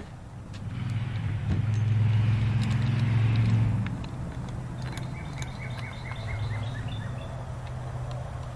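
A motor vehicle going past, its low engine hum swelling for a few seconds and then dropping back. In the second half a bird sings a quick run of about eight short high chirps.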